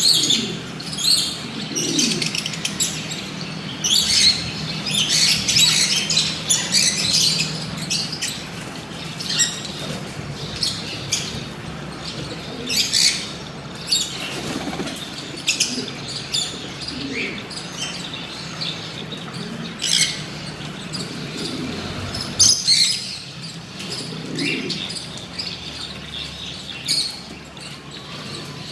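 Lovebirds chirping and squawking in short, high-pitched bursts over and over, busiest in the first several seconds.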